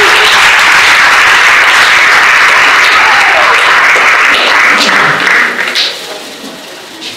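Audience applauding loudly, breaking into a few last separate claps and dying away about six seconds in.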